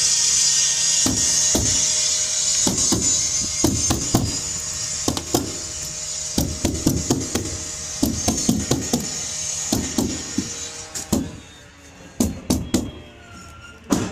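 Hammer tacker slammed against a plastic rainscreen mat on a wall, driving in staples: a string of sharp, irregular strikes, up to about two a second, over a steady hiss that stops about three-quarters of the way through.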